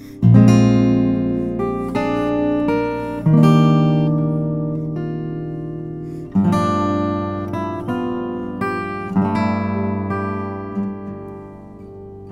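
A Kathy Wingert harp guitar played solo with the fingers, in lute-like tuning and capoed at the third fret. Melody notes sound over deep sub-bass strings, with fresh bass-and-chord attacks about every three seconds that ring on and fade slowly.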